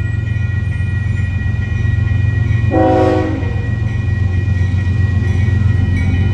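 Union Pacific diesel freight locomotives rumbling heavily as they approach the grade crossing, with one short horn blast about three seconds in. Steady high ringing from the crossing signal bells sounds over the rumble.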